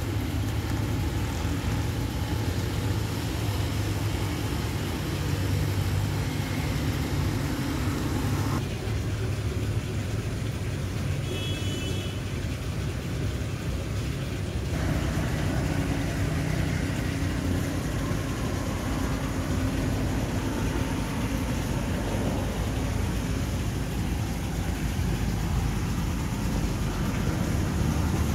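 Steady low machine hum with a lighter hiss above it; the hiss drops away for about six seconds in the middle of the stretch.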